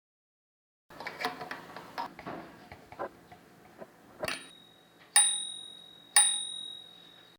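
Facit manual typewriter: a run of light, irregular mechanical clicks from its mechanism, then its bell rings twice, about a second apart, each ring a clear tone that fades away.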